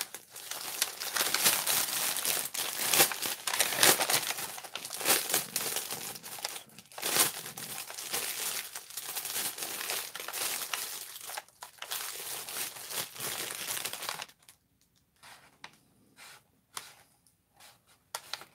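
Clear plastic packaging bag crinkling and rustling as a rolled diamond painting canvas is handled and unwrapped from it. About fourteen seconds in the handling stops, leaving only a few faint crinkles.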